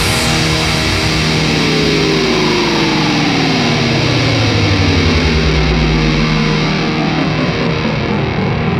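Background music with a steady, dense sound and a long falling pitch sweep in the middle.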